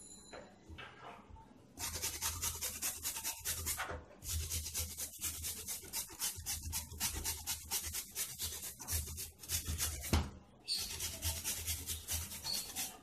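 Carrot grated on a stainless-steel hand grater over a plastic cutting board: quick, rhythmic rasping strokes, several a second. They start about two seconds in and pause briefly twice.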